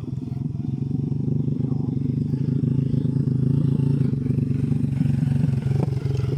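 Small motorcycle, loaded with timber planks, running at low speed as it comes up the dirt track and passes close by. Its engine chugs steadily and grows louder toward its nearest point, about four to five seconds in.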